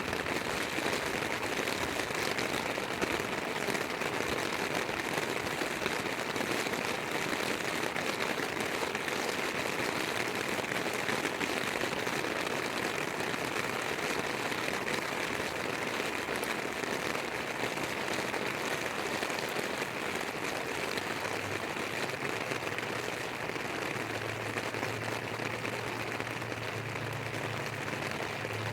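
Heavy rain pouring down steadily, an even hiss of drops. A low hum comes in near the end.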